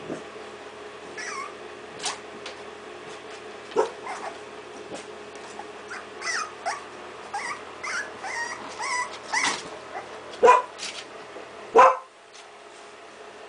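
Three-week-old puppies yipping and whimpering in short, high, sliding calls, scattered through the middle, with two louder, sharper yelps near the end.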